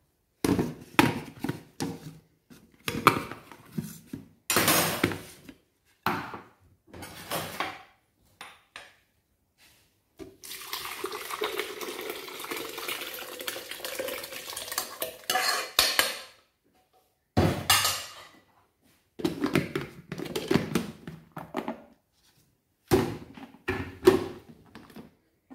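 A metal spoon clattering and scraping against a saucepan as sauce is ladled out. About ten seconds in, sauce is poured from the pan into a plastic blender jug for about six seconds. More knocks follow as the jug's lid is fitted.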